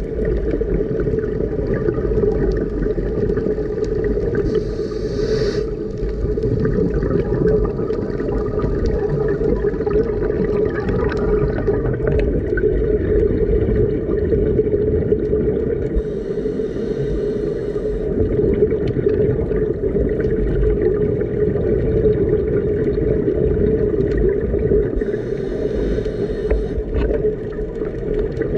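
Underwater: the steady drone of a boat's engine and propeller carried through the water, one pitched hum with overtones over a low rumble. Brief hissing breaths from a scuba regulator come three times, about ten seconds apart.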